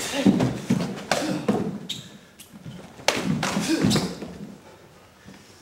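Thumps and slaps of karate sparring: bare feet stamping on a wooden floor and arms striking and clashing in blocks. They come in two flurries, over the first second and a half and again from about three to four seconds in.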